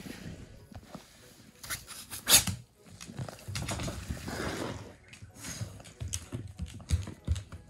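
Close rustling and bumping as cats rub their heads and bodies against a person's hand and clothes right at the phone, with a sharp knock about two seconds in.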